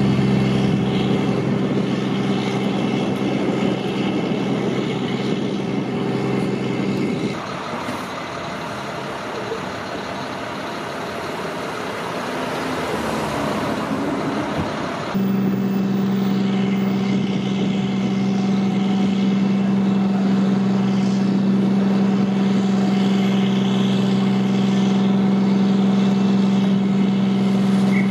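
Large emergency vehicle's engine idling with a loud, steady hum. In the middle the hum drops out for several seconds, giving way to a rushing traffic noise that swells before the idle returns abruptly.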